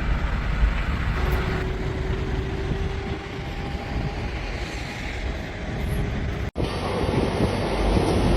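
Heavy diesel machinery running with a dense, steady low rumble. About six and a half seconds in the sound cuts off abruptly and a different stretch of machine noise follows.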